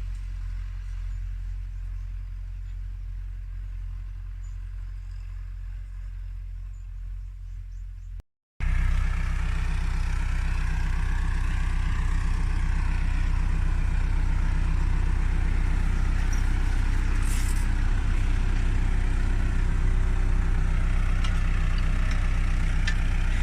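Tractor engine running steadily with a low rumble. About eight seconds in, the sound drops out for a moment and then comes back much louder and closer.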